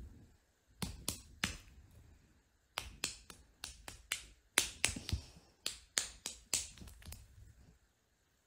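A run of sharp, separate clicks or taps: three about a second in, then more than a dozen more at an uneven pace from about three seconds in until about seven seconds in.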